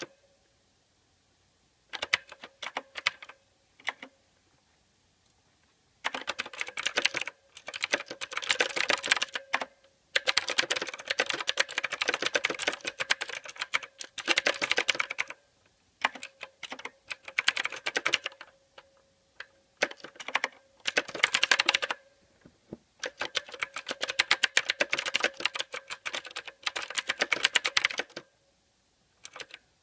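Typing on a mechanical keyboard: rapid clacking keystrokes in bursts of a few seconds, broken by short pauses.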